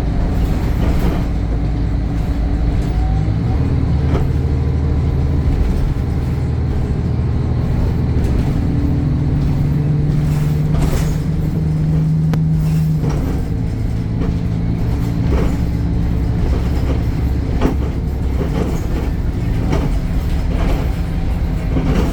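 Temsa Avenue LF 12 city bus heard on board: its DAF diesel engine runs and pulls. The engine note climbs over several seconds and drops back about thirteen seconds in, with scattered knocks and rattles.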